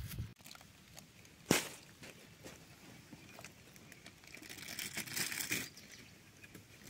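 Quiet handling noises: one sharp tap about a second and a half in, then a brief dry crinkling rustle near five seconds in, as of dry leaf sheath or leaves being handled.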